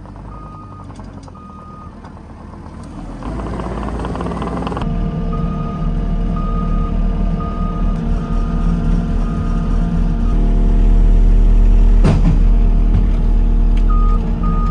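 Loader's engine running and throttling up in steps, with its backup alarm beeping at one pitch about once a second. A single sharp knock comes near the end.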